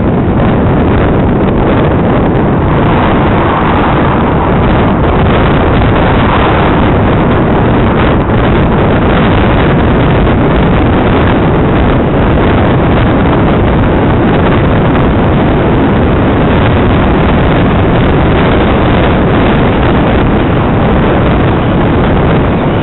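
Loud, steady wind rush buffeting a MUVI micro headcam's microphone while riding a mountain bike at speed.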